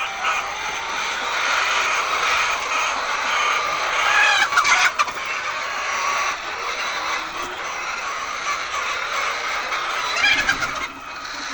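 A flock of laying hens clucking together in a steady dense din, with a couple of brief louder noises, about four and a half seconds in and again near the end.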